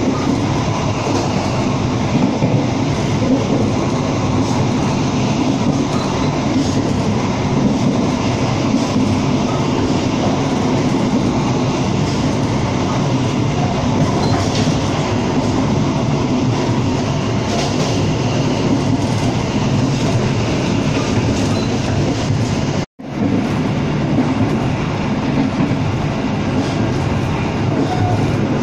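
Steady running noise of a moving passenger train heard from inside a carriage: wheels on the rails and the car in motion. The sound cuts out for an instant about 23 seconds in.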